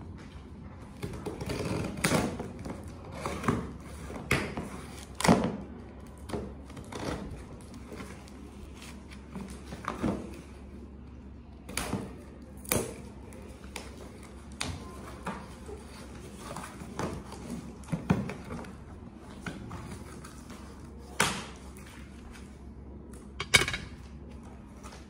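Cardboard shipping box being opened: scissors slitting the packing tape, then the flaps pulled and torn open, making irregular sharp rips, scrapes and knocks of cardboard.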